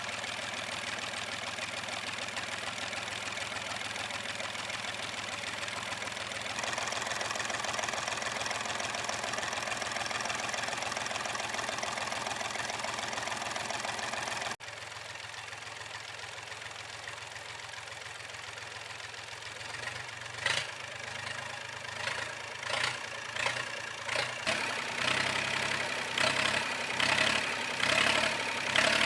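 24 hp Iseki engine running: a steady run with a knocking beat, then after an abrupt cut it comes back, quieter at first. From about two-thirds of the way in, it gives uneven, louder surges that build toward the end.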